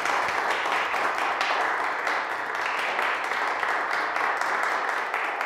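Audience applauding, a dense steady clapping that begins to fade near the end.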